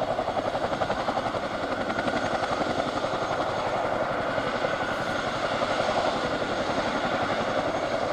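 Boeing CH-47F Chinook's tandem three-blade rotors turning on the ground with its twin turboshaft engines running: a steady, rapid rhythmic beat of the blades.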